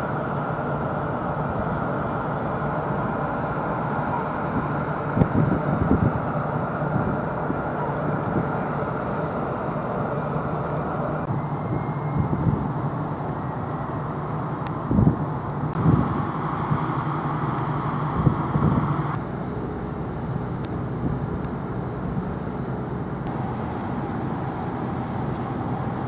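Steady engine drone with a low hum and a broad rushing noise, broken by a few dull thumps.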